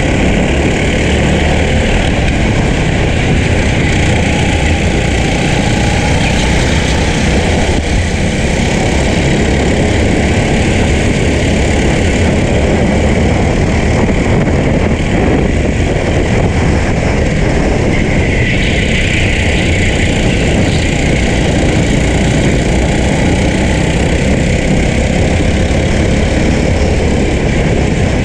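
Racing go-kart engine running hard at racing speed, heard onboard the kart, loud and steady without a break.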